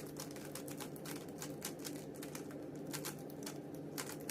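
Rubik's cube being turned quickly by hand to apply a scramble: a fast, irregular series of light plastic clicks as the layers snap round, over a faint steady hum.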